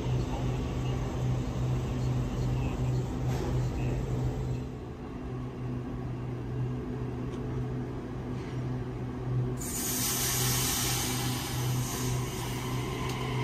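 Stationary Sydney Trains double-deck electric train humming steadily, a low drone with a few steady tones above it. About ten seconds in, a loud hiss of air from the train's pneumatic system starts suddenly and carries on.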